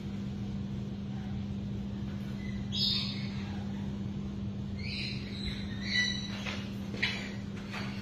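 Lories giving short, high squawks: one a little before three seconds in, then several close together from about five to seven and a half seconds in, over a steady low hum.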